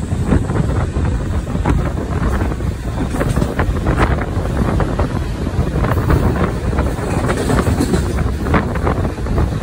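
Heavy wind buffeting the microphone held outside a fast-moving MEMU electric train, over the running noise of the wheels on the rails with irregular clicks and clatter.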